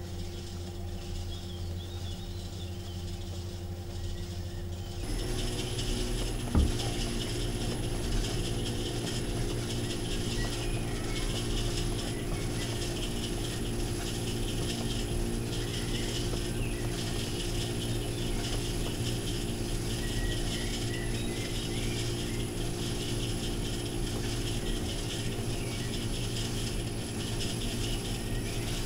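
Electric potter's wheel running with a steady motor hum and a light, regular mechanical rattle as the wheel head turns under a thrown clay bowl. There is a single knock about six seconds in.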